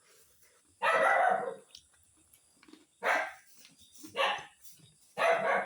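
A dog barking four times at uneven intervals, the first bark longer than the rest.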